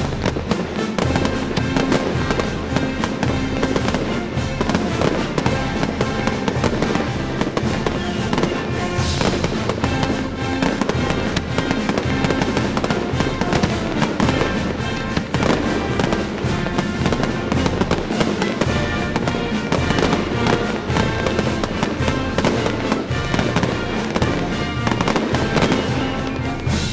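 Fireworks display firing continuously: shells and comets launching and bursting in quick succession, with a dense run of bangs, over music played with the show.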